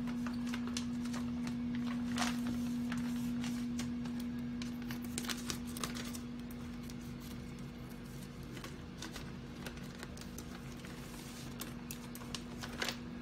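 Plastic lobster packaging being handled and pulled at: scattered crinkles and light taps over a steady low hum.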